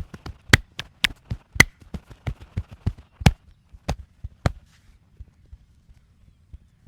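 Rapid percussive massage strikes on the body, sharp knocks at about four a second with several louder blows, dropping to faint, sparse taps after about four and a half seconds.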